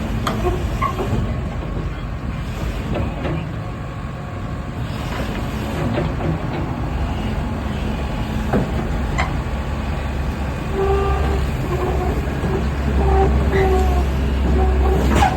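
Kobelco SK80UR-6 excavator's diesel engine running with a steady rumble, with a few sharp metal clanks. In the last third it grows louder and a whining tone rides on top, as the machine works under load.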